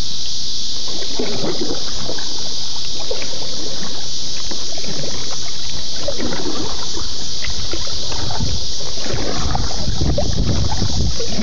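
Kayak being paddled at speed: irregular paddle splashes and knocks against the hull, with bumping and rubbing on the covered microphone, over a steady high hiss. A heavier low rumble comes in near the end.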